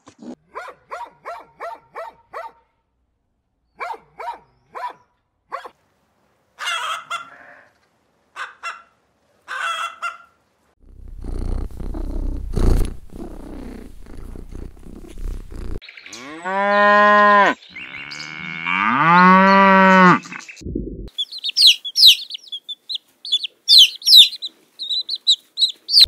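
Rabbits chewing a green stem, a run of quick crunching clicks. Then a cat purring as it is stroked, a low rumble. Then two long drawn-out animal calls that rise and fall in pitch, followed by high chirping near the end.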